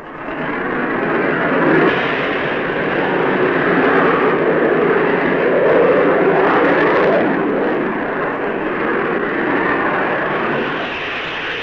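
Jet aircraft engines in flight: a steady rushing noise that swells up over the first two seconds.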